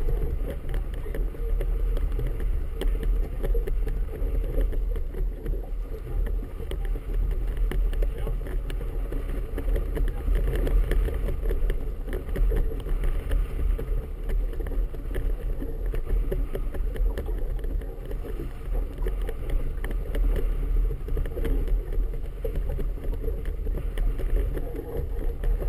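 Steady wind rumble on the microphone mixed with choppy water around a boat riding beside a mark buoy, with no distinct events.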